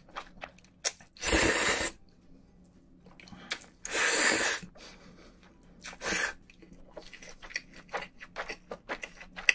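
A person slurping cold buckwheat noodles (naengmyeon): two long, loud sucking slurps and a shorter third. Wet chewing clicks follow near the end.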